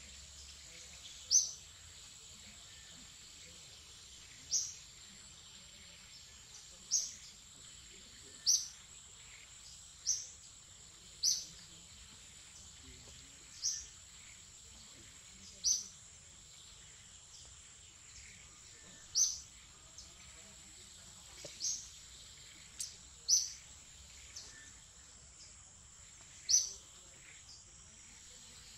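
A bird's short high-pitched chirp, repeated a dozen or more times at uneven gaps of one to three seconds, over a steady high hiss of forest ambience.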